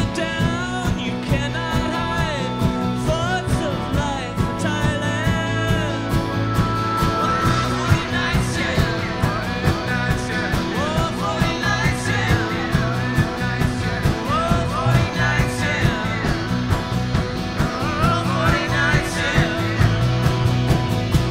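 Live acoustic band playing a rock-and-roll tune: strummed acoustic guitar and harmonica over a steady beat, with some singing.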